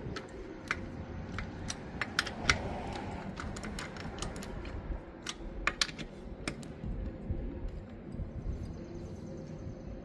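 Long ratchet handle with a 19 mm socket clicking sharply and irregularly as it is worked back and forth to loosen a car wheel's lug nuts. The clicks come thickly for the first six or seven seconds, then thin out.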